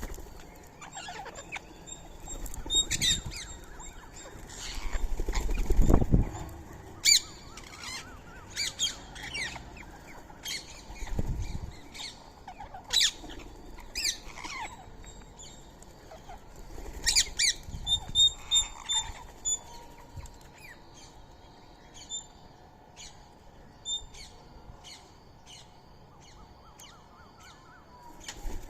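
Birds at a feeding spot, Indian ringneck parakeets among them, giving short high chirps and squawks in irregular bursts. A few low thumps stand out, the loudest about six seconds in and another near eleven seconds.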